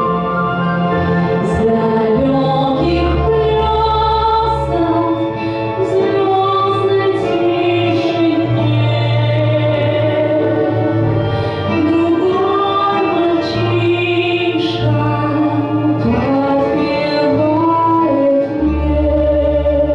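A solo voice sings a slow melody with long held notes over instrumental accompaniment with a steady bass line.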